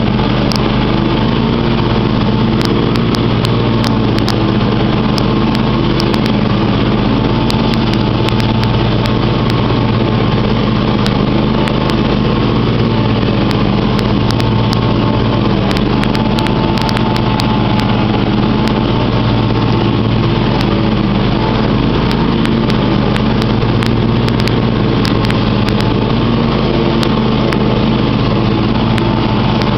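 John Deere X500 riding mower's 25 HP engine running steadily as the mower drives across the lawn.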